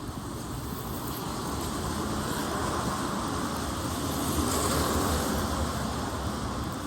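A vehicle passing on a rain-wet street, its tyre hiss building to a peak about four or five seconds in and then fading.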